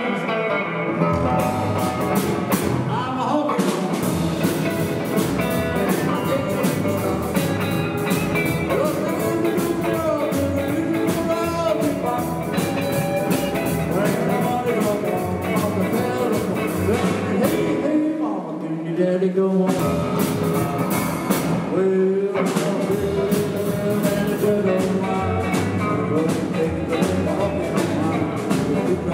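Small rock 'n' roll band playing live: acoustic guitar, electric guitar, upright double bass and an electric keyboard, with a steady beat. The bass drops out briefly about two-thirds of the way through.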